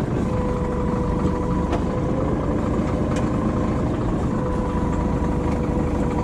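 Caterpillar bulldozer's diesel engine running at a steady idle.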